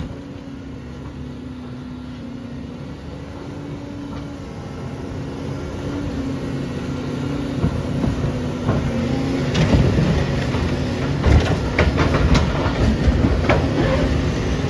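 Excavator's diesel engine running under load, a steady drone that grows louder. From about ten seconds in, repeated metal bangs and crunches as the trailer is torn apart.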